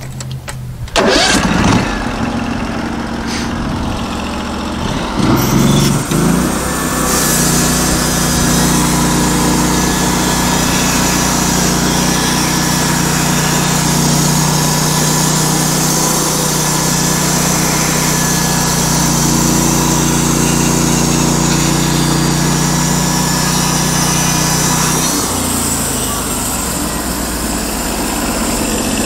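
Portable band sawmill's gas engine comes up to speed about a second in, revs higher around five seconds in, then runs steadily under load with a hiss over it as the band blade feeds through a log; the engine eases off slightly near the end.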